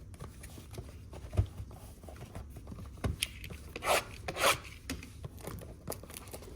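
Cardboard trading-card box being handled and opened: rubbing and scraping of cardboard, with a couple of light knocks and two short rasping scrapes about four seconds in.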